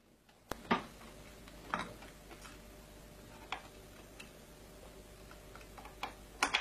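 Scattered light clicks and knocks from a restraint strap and its hook being handled and fastened under a wooden desk, a second or so apart with a quicker pair near the end, over a faint low hum.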